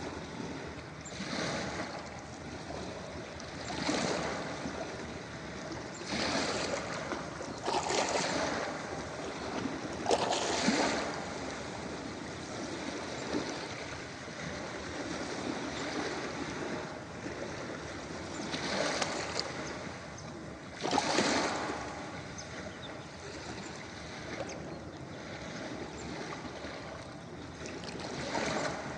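Ocean waves washing onto a beach: a steady hiss of surf with a louder wave surging in every few seconds, the strongest about ten and twenty-one seconds in.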